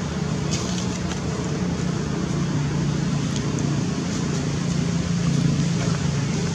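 Steady low hum of a running engine over a constant wash of road-traffic noise, with a few faint short ticks.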